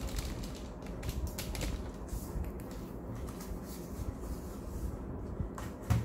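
Handling noise as keyboards are picked up and moved about on a desk: a low rumble with scattered light plastic clicks and knocks, and one sharper knock near the end.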